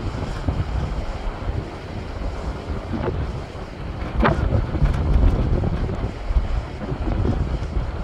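Sea waves breaking and washing over shoreline rocks, a steady surging surf with a sharper splash about four seconds in, under a heavy low rumble of wind buffeting the microphone.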